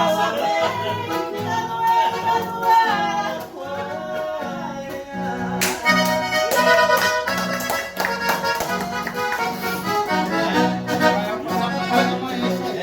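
Accordion playing a lively tune over a steady, regular bass beat.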